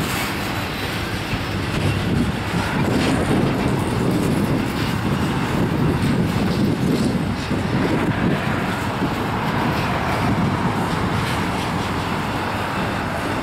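Norfolk Southern intermodal freight train rolling past: the steady rumble of flatcars loaded with trailers and containers, with occasional clicks of wheels over the rails.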